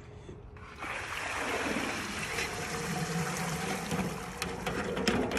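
Seasoned boil water streaming and trickling out through the holes of an aluminum crawfish basket as it is lifted out of the pot, starting about a second in. A few light clicks near the end.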